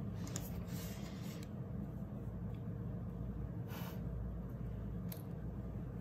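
Paper and stickers being handled on a desk: a few brief rustles and a light click, over a steady low room hum.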